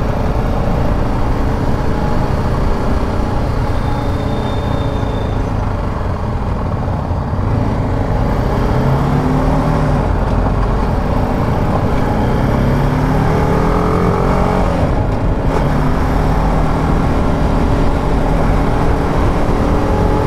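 BMW G310 GS single-cylinder engine running under a steady rush of riding wind on the microphone, its pitch rising several times in the second half as the bike accelerates through the gears.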